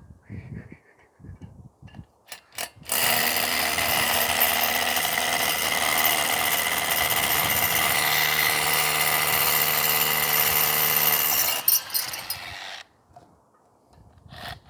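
Hammer drill boring into concrete, running loud and steady for about nine seconds after a couple of brief starts, then stopping.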